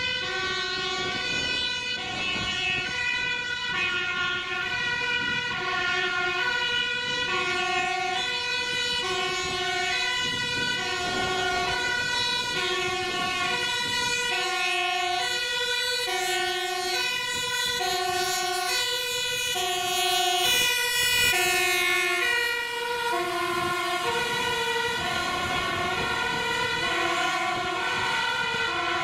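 A Dutch fire engine's two-tone siren sounds a steady alternating high-low pattern, about one cycle every second and a bit. The engine approaches and passes with a rush of engine and tyre noise about two-thirds of the way in. It then moves away, its siren notes dropping a little in pitch.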